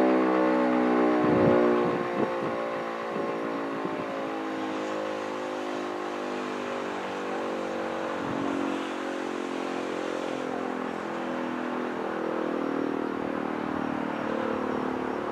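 Mechanical motor siren winding down after its signal, its tone slowly falling and getting somewhat quieter about two seconds in.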